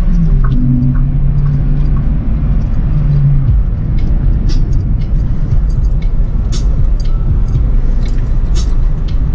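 Acura RSX four-cylinder engine and road noise as heard inside the cabin while driving: a steady low rumble, with scattered light clicks in the second half.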